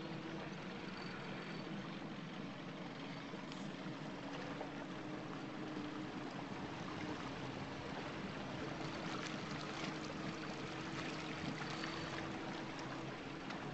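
A small boat's motor running steadily with a low hum, mixed with water rushing and trickling along the hull as the boat moves slowly.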